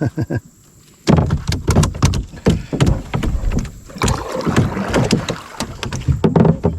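Rapid knocking and rattling against the hull of a small fishing boat, starting about a second in and going on in a busy clatter.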